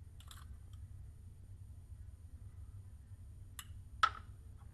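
Light clicks of glass and plastic labware and a spatula being handled, with one sharper tap near the end, over a steady low room hum.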